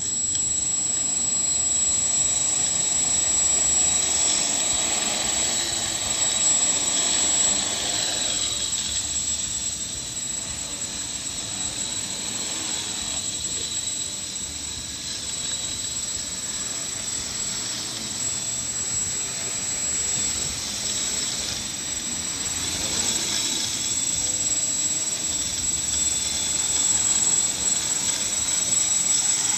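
X-Aircraft quadrotor's electric motors and propellers spinning up abruptly and running with a steady high whine. The level swells and eases as the throttle changes in flight.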